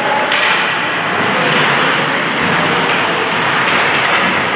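Loud, steady noise of an ice hockey rink during play: crowd din and game noise with no single clear source.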